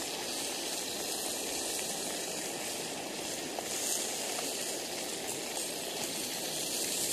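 Sausages sizzling in a frying pan on an Alocs gas camping stove, over the burner's steady hiss.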